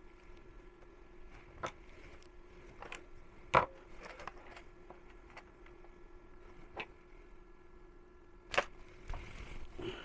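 Scattered sharp clicks and taps of small tools and parts being handled during a soldering repair, the loudest two about a third of the way in and near the end, over a steady electrical hum.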